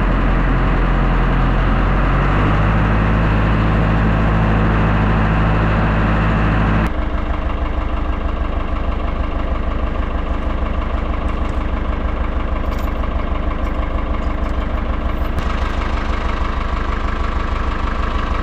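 Farm tractor engine running while driving, stepping up in pitch about two seconds in. About seven seconds in it gives way to the tractor idling steadily with a low pulsing hum.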